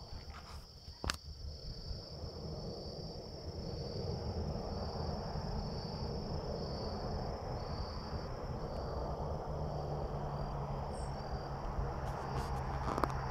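Insects chirping in a steady, high, pulsing trill about twice a second, over a low rumbling noise on the microphone that grows louder after a few seconds. A sharp click about a second in, and a few more near the end.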